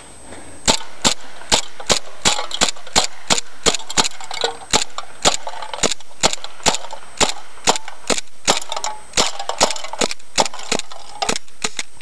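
WE Hi-Capa gas blowback airsoft pistol firing a long, steady string of shots at about three a second, each a sharp pop with the clack of the slide cycling.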